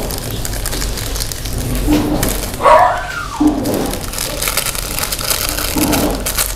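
A dog barking several times. The loudest is one longer call, rising and then falling in pitch, a little under three seconds in.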